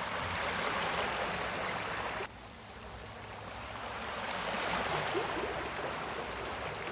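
Recorded sea waves: a steady wash of surf that drops off suddenly about two seconds in, then slowly swells back up and eases again.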